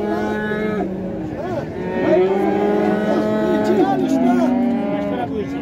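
Cattle mooing: several long drawn-out calls, one after another and overlapping, among a pen full of cattle.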